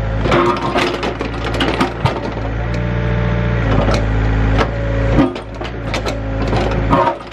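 Compact excavator's diesel engine running under varying hydraulic load, its pitch shifting several times as the arm works, with roots and branches cracking and rocks knocking as the bucket and thumb tear out brush.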